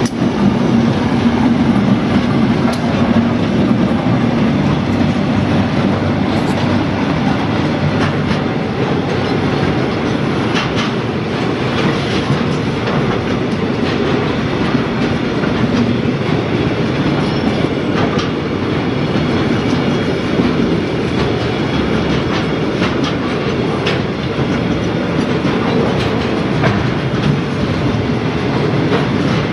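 Narrow-gauge freight train's container wagons rolling past at close range: a steady rumble with scattered clicks of wheels over the rail joints.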